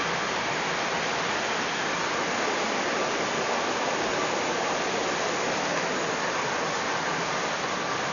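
A steady, even hiss that does not change, with no distinct knocks, clicks or motor whine in it.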